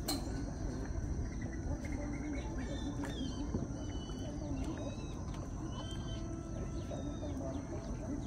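Birds chirping in short calls, most of them in the middle of the stretch, over a steady low rumble and a thin, steady high-pitched whine.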